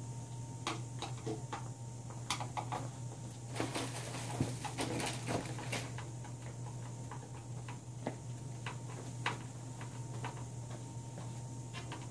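Scattered clicks, taps and rattles of small screws, nuts and hand tools being worked on a DIY 3D printer's plastic brackets and steel rods, with a denser flurry of rattling about four to six seconds in, over a steady low hum.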